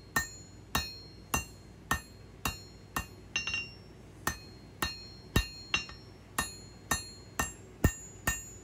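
Hand hammer striking hot steel on an anvil, a steady rhythm of a little under two blows a second with a brief pause about halfway through, each blow followed by a short metallic ring from the anvil, while a knife handle is being shaped.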